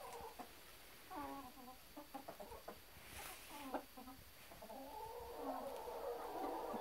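Domestic hens clucking: a string of short clucks, then a longer drawn-out call starting about two-thirds of the way in. A brief rustle near the middle.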